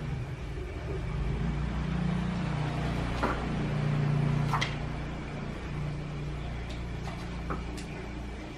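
A low, steady rumble, louder for a few seconds in the middle, with a few sharp clicks over it.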